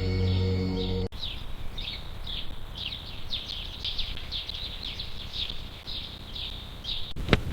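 Soft music for about the first second, then a bird calling in a rapid series of short, high chirps that fall in pitch, about two or three a second, over a low rumble.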